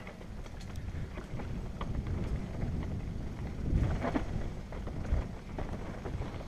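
Mountain bike descending a dirt trail, heard from a helmet camera: a steady low rumble of wind on the microphone and tyres on dirt, with frequent knocks and rattles from the bike over bumps and stones, loudest about four seconds in.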